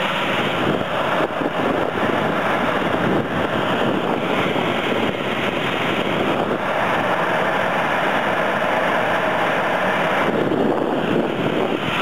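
Air rushing past the microphone inside a running furnace, pulled in through the open fresh air adder duct above the blower: a steady, loud rush of wind noise.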